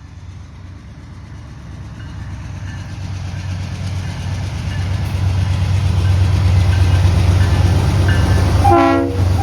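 BNSF 508, a rebuilt Dash-8 diesel locomotive, approaching with its engine rumble growing steadily louder. Near the end its Leslie RS-3L three-chime air horn sounds a chord.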